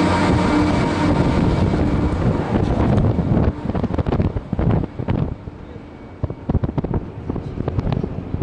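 Steady mechanical hum of a cable car, with several held tones, fading out over the first couple of seconds. Then wind buffets the microphone in irregular gusts.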